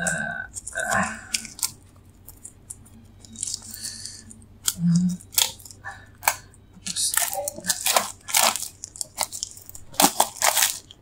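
Clear plastic wrap on a small cardboard box being pried at with a pen, then torn and crinkled off: irregular crackles, rustles and small clicks, busiest in the second half.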